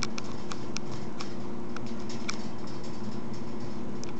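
A cat's claws and paws clicking and tapping on the kitchen floor as it plays with a string: short, irregular clicks, several a second for the first two seconds or so, then sparser. A steady low hum runs underneath.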